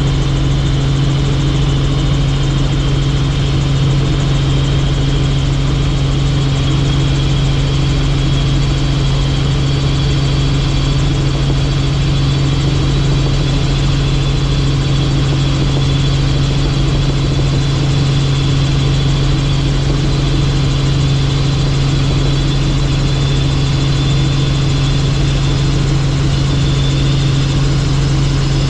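Helicopter in flight: a steady, unchanging drone of engine and rotor, a strong low hum with a faint high whine above it.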